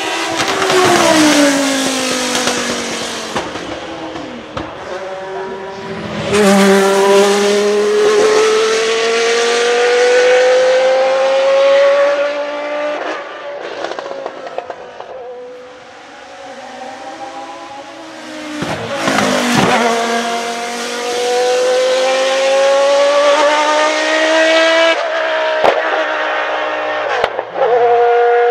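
The Lola T92/10 Group C car's 3.5-litre naturally aspirated Judd GV10 V10 at full throttle. It passes close at the start with a falling pitch, then pulls away hard, its pitch climbing steadily in long pulls through the gears.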